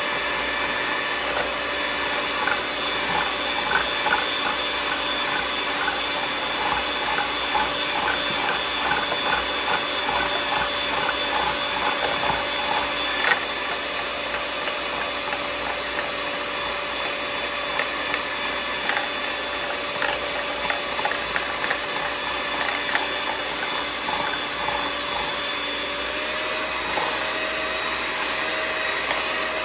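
Electric hand mixer running steadily, its beaters whipping instant coffee, sugar and hot water in a ceramic bowl, with spells of rapid clicking from the beaters against the bowl. The motor tone steps up slightly near the end.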